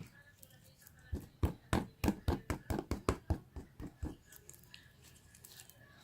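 Slime being pressed and poked by hand, giving a quick run of about fifteen sharp sticky clicks over some three seconds, starting about a second in, then a few fainter clicks.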